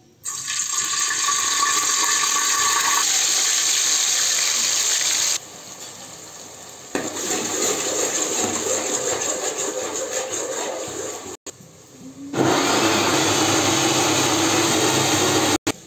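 Hot oil sizzling loudly in an aluminium pressure cooker as food fries, in three stretches broken by sudden cuts.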